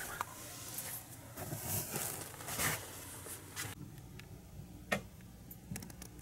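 Handling noise: soft rustling and scraping of the handheld camera against a backpack and bedding. This stops abruptly and gives way to a quieter background with scattered light clicks and ticks, one sharper click about five seconds in.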